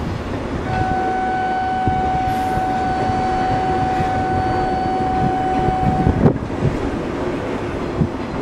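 A steady electronic signal tone sounds for about five seconds before an E2 series Shinkansen departs, then cuts off suddenly and is followed by a thump. Under it runs a constant low rumble with wind noise on the microphone.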